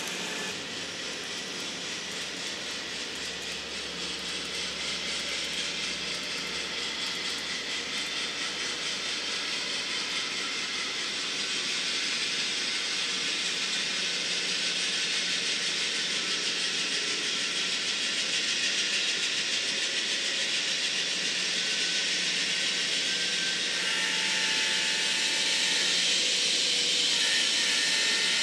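N-scale model train running on the layout: a steady hiss with a low hum, growing gradually louder as the train nears.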